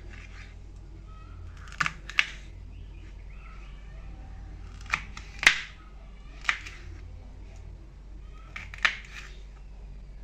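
Kitchen knife slicing through a green capsicum and striking a wooden chopping board: about seven sharp, irregular chops, the loudest a little past the middle.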